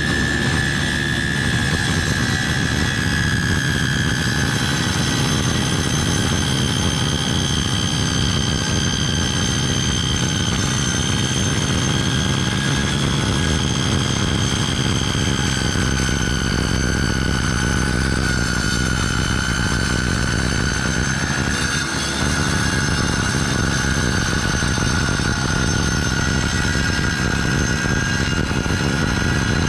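Skilsaw Mag 77 worm-drive circular saw running steadily as it cuts through a door made of three layers of wood: a loud, constant high whine over the drone of the motor. The whine drops a little in pitch about halfway through and then holds.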